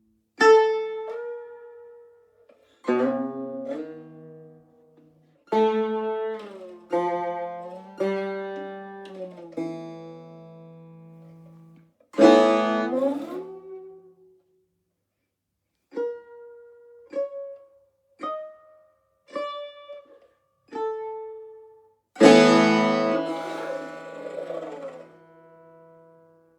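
Solo tar, the Persian long-necked lute, played in separate plucked notes and short phrases with pauses between them. Sparse single notes come in the middle, and fuller strummed chords about twelve seconds in and again near the end.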